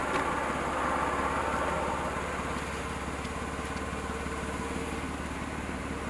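A vehicle engine running steadily at idle, easing off slightly about two seconds in.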